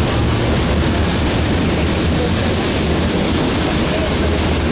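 Freight cars of a manifest train rolling past on the rails, a steady, even rumble of wheels and cars.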